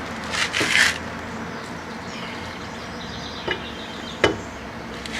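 A wheel lug nut being tightened with a lug wrench: a short scraping rasp about half a second in, then two sharp clicks near the end.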